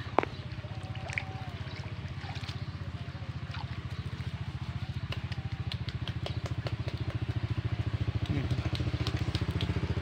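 A small engine running steadily with an even, fast chugging beat that grows a little louder toward the end. A sharp click comes just after the start.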